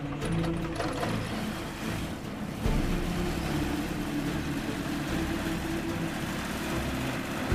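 Rotax 912 flat-four engine of an Ikarus C42 light aircraft running steadily with a continuous drone. It gets abruptly louder about two and a half seconds in.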